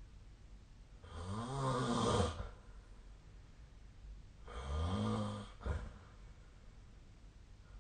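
A person snoring in sleep: two snores about a second long, some three seconds apart, each rising and then falling in pitch, the second followed by a short catch.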